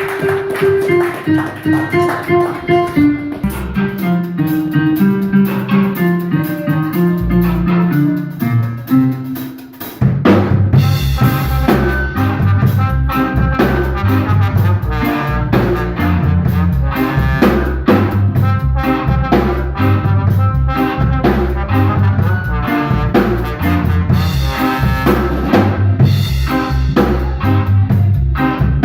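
Live instrumental band playing, guitar over bass and drum kit. About ten seconds in, the music drops away for a moment, then the full band comes back in heavier.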